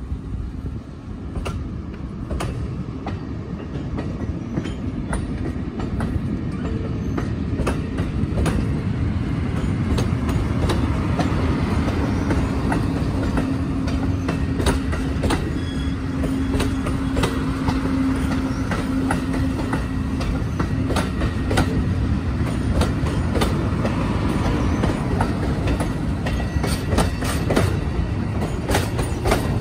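Amtrak Silver Star passenger cars rolling past, their wheels clicking over the rail joints. The rumble grows louder over the first several seconds, and a low steady hum sounds for about ten seconds midway.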